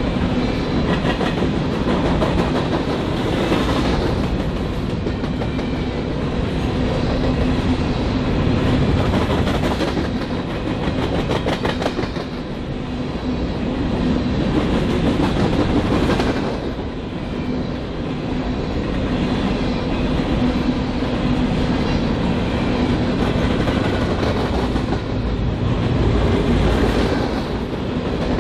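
BNSF freight train rolling past at close range: a steady, loud rumble of railcars with wheel clicks over the rail joints.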